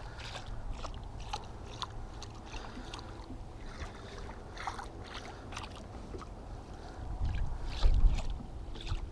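Small waves lapping and splashing against a fishing boat's hull in irregular little splashes, over a low rumble that swells louder briefly near the end.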